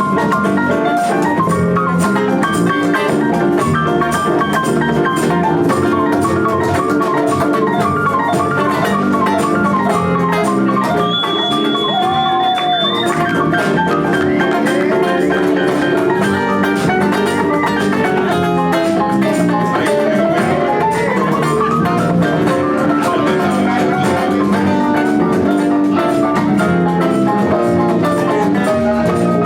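Live band playing an instrumental passage: a drum kit keeps a steady beat under pitched melodic lines. A note glides upward about two-thirds of the way through.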